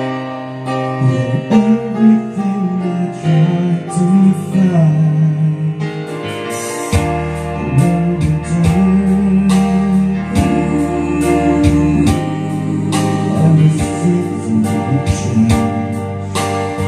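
Karaoke backing track played by a TJ Media TKR-305P karaoke player: a band accompaniment with guitar and keyboard under a sung melody line, with a deeper bass coming in about seven seconds in.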